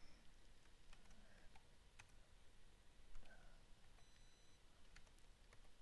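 Faint, irregular clicks of computer keyboard keys as a password is typed, about a dozen keystrokes against near silence.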